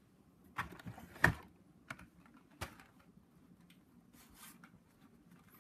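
Carded Hot Wheels blister packs being handled: a few sharp plastic-and-card clicks and taps, the loudest about a second in, then a soft rustle.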